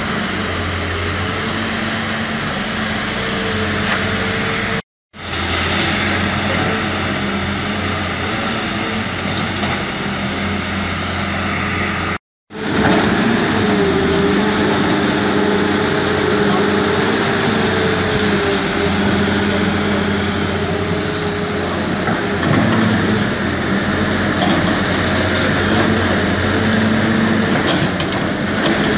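Caterpillar hydraulic excavator's diesel engine working under load during demolition, a steady engine note that rises and wavers as the arm and bucket move, with occasional knocks of masonry and rubble.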